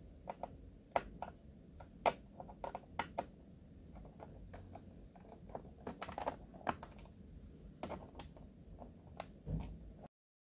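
Irregular small clicks and taps of a screwdriver and hands working on a plastic laptop underside while screws are taken out. The sound cuts off abruptly near the end.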